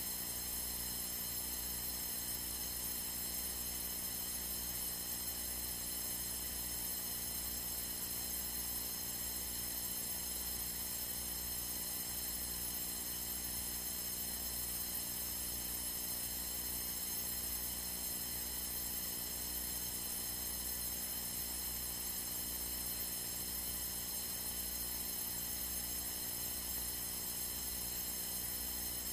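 Steady electrical hum and hiss from a light aircraft's radio and intercom audio feed in level cruise, with a low, evenly pulsing throb underneath.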